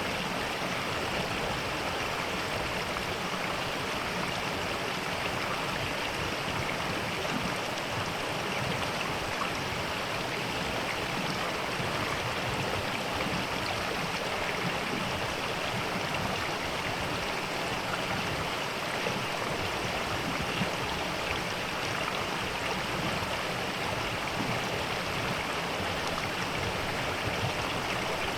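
Mountain valley stream flowing, a steady rush of water without a break.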